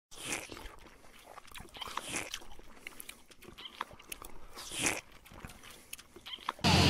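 Crunching, biting sounds from an intro logo: a string of crisp crackles and clicks, with louder crunches near the start, about two seconds in and just before five seconds. Right at the end a loud steady noise cuts in suddenly.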